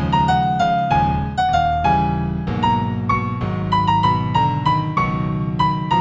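New-age piano music in F major: a slow melody of single struck notes over sustained lower chords.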